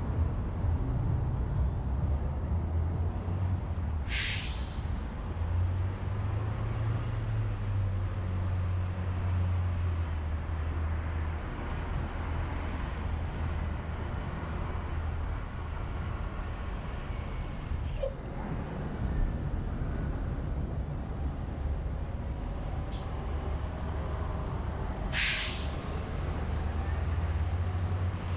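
Downtown street traffic: a steady low rumble of heavy vehicle engines, broken by two sharp bursts of hiss, one about four seconds in and one near the end, with a shorter, fainter hiss just before the second.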